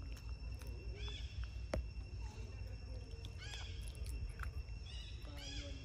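Short, high, arched animal calls, each a quick rise and fall in pitch, come about three times in a few seconds over a faint steady high whine. A single sharp click falls in the middle.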